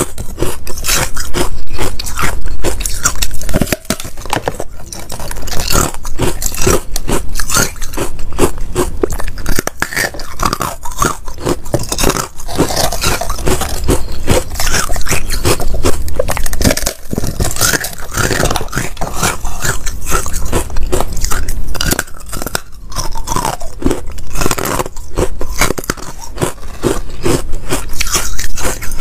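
Biting and chewing of brittle white, porous ice: an unbroken run of loud crunches and crackles, several a second.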